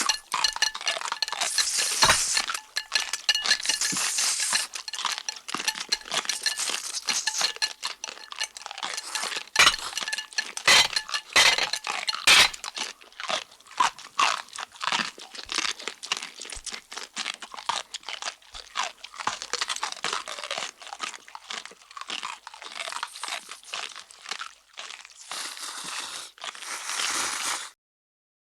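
Cartoon-style eating sound effects: fast, crisp crunching and chewing, with a few clinks of dishes in the first seconds. The sound stops abruptly near the end.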